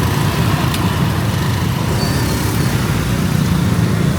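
Busy road traffic: a steady, continuous rumble of vehicle engines passing on the street.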